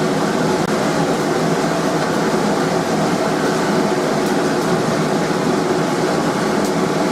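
Blacksmith's forge air blast running steadily: an even, rushing noise.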